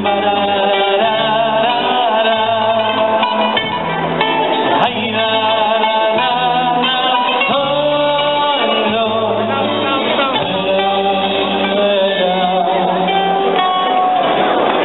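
Live band music: a voice holding long, wavering notes over plucked-string accompaniment and a steady bass line.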